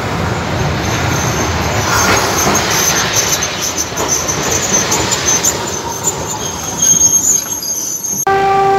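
A tram passing at close range, its wheels rumbling and clattering on the rails with a high-pitched wheel squeal. Near the end the sound cuts suddenly to a short steady horn-like note.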